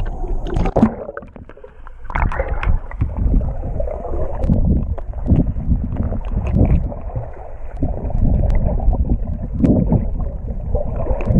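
Sea water sloshing and gurgling around an action camera at and below the surface, heard muffled through its waterproof housing, swelling in uneven pulses about once a second with the swimming strokes.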